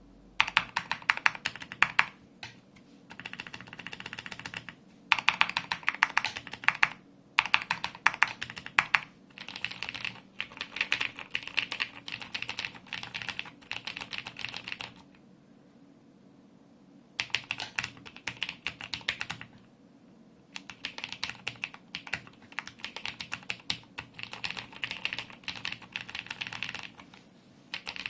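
Typing on a Razer BlackWidow Tournament mechanical keyboard with Cherry MX Blue switches lubed with SuperLube, which the owner says has almost taken away their click, plus Krytox-lubed stabilisers and added case dampening. Quick runs of keystrokes come in bursts of a few seconds, with short pauses and one longer pause of about two seconds past the middle. A few strikes stand out louder than the rest.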